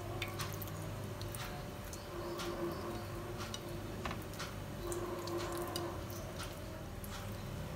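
Hands rubbing spice paste into whole fish on a plate: quiet, wet squishing with faint scattered clicks, over a faint steady low hum.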